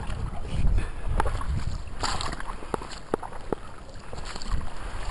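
Footsteps crunching through dry brush and deadfall, with several sharp twig snaps, over wind rumbling on the microphone.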